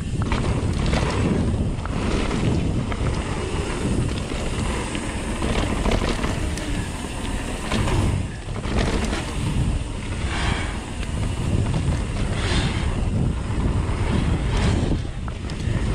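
Wind buffeting the camera microphone on a mountain bike ride, over the rumble of tyres on a dirt trail, with irregular knocks and rattles from the bike running over rough ground.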